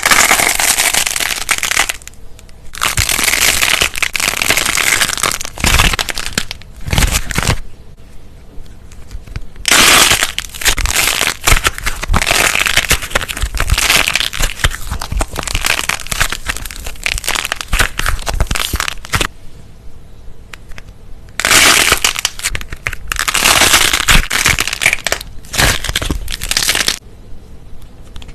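Crisp crunching and crackling, full of small rapid cracks, as something brittle is crushed; it comes in several long stretches separated by short quieter pauses.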